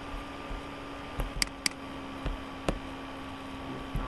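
Computer mouse clicks, a few single clicks and a quick double-click about a second and a half in, opening folders. Behind them is a steady low electrical hum with hiss.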